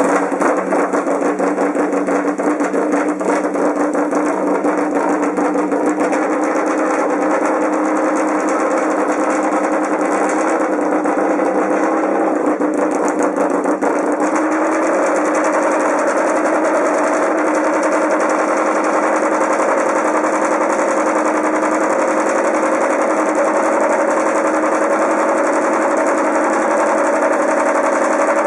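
MotoGP racing motorcycle engine running at a steady fast idle, its exhaust heard up close as a rapid, even pulsing, the pitch creeping up slightly in the second half.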